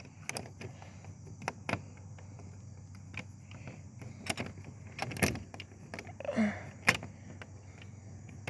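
Scattered clicks and knocks of a person walking outdoors. A short pitched call sounds about six seconds in.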